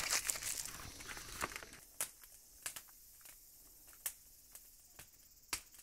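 Aluminium foil crinkling and rustling as it is handled, fading out after about two seconds, followed by a few scattered light clicks.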